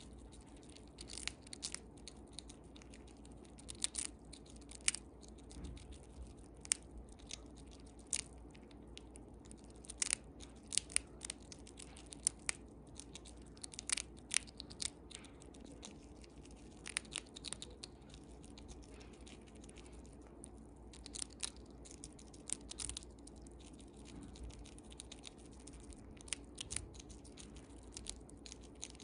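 Siberian chipmunk crunching a crisp dried vegetable chip: sharp, crackly bites and chews coming in irregular clusters.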